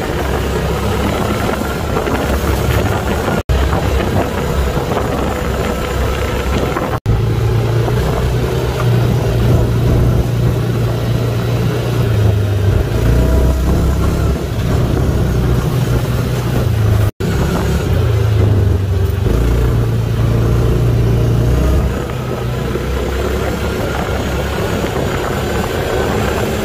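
ATV (quad bike) engine running under way, its pitch rising and falling with the throttle. The sound drops out for an instant three times.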